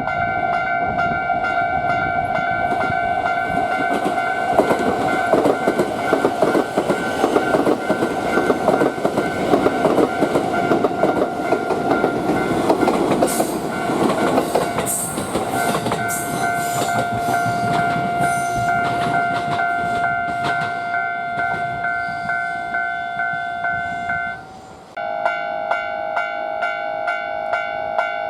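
Japanese level-crossing warning bell ringing in a steady repeating pattern while a train runs over the crossing, its wheels clattering over the rail joints. The sound drops out for a moment about 24 seconds in, then the bell carries on.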